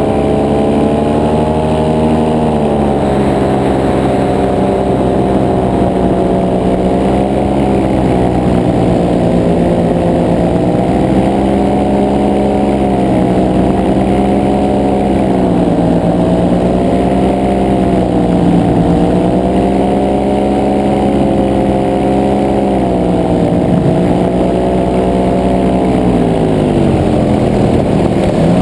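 Paramotor trike engine and propeller running, the pitch drifting gently up and down with the throttle, then falling off near the end as the throttle is eased back.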